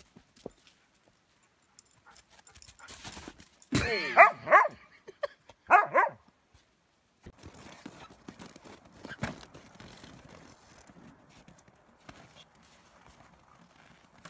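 An animal calling twice: a loud, wavering cry about four seconds in and a shorter one about two seconds later.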